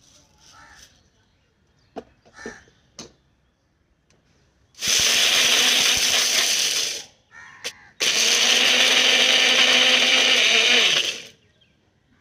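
Electric mixer grinder grinding dry soybeans to powder in its small jar, run in two bursts of about two and three seconds with a short pause between, the motor winding down at the end. Before it, a few light clicks as the jar is handled.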